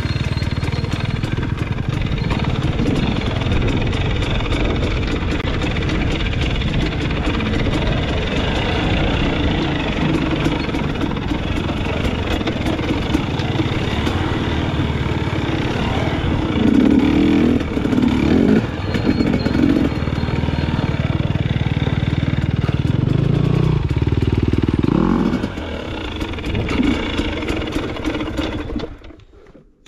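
Dirt bike engine running under varying throttle while being ridden, with louder surges of throttle around the middle. The sound drops away sharply near the end.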